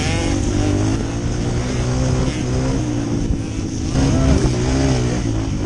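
Dirt bike engine revving up and down as the rider accelerates and shifts along the track, close up from the rider's helmet. The revs rise and it gets louder about four seconds in.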